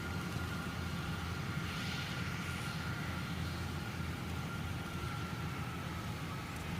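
Kubota DC-105X rice combine harvester running steadily: a constant low engine drone with a thin, steady whine above it.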